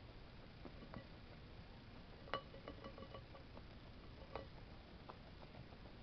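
Guinea pig eating grapes out of a glass bowl: faint scattered ticks of chewing and shifting fruit, with two clinks against the glass bowl that ring on briefly, the louder one about two seconds in and another about four seconds in.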